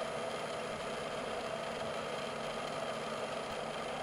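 Milling machine running steadily with its spindle turning an edge finder to locate the edge of a steel block: an even mechanical hum with a few constant whining tones.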